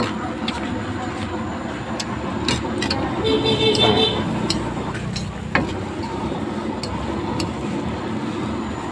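Metal ladle clinking and scraping against a wok as yellow noodles are stir-fried, about ten sharp irregular clinks over a steady rushing noise from the cooking.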